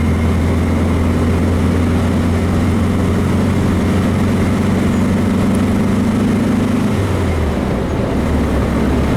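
Freshly built 1776 cc air-cooled VW flat-four running steadily as the Beetle drives along, heard from inside the cabin. The engine note drops about seven and a half seconds in, then settles at a lower pitch.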